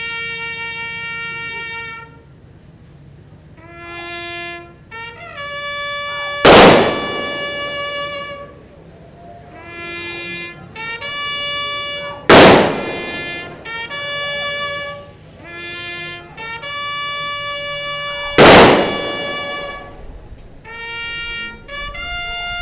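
A trumpet plays a slow call of long held notes in short phrases. Three single loud shots of a gun salute, about six seconds apart, ring out over it, each with a trailing echo.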